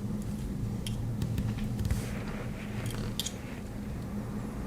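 Victorinox Farmer X Alox Swiss Army knife handled in the hands, its opened reamer/awl giving a scattering of light metallic clicks and taps over a steady low hum.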